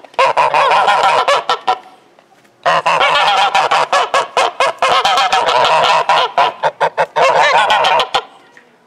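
A flock of white domestic geese honking in rapid, overlapping calls. The honking comes in two bouts: a short one that stops just under two seconds in, then after a brief pause a longer one that stops about a second before the end.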